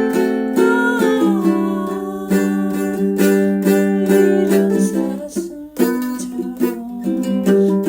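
Ukulele playing a slow ballad melody over chords, plucked and strummed. The playing thins out briefly about five and a half seconds in, then picks up again.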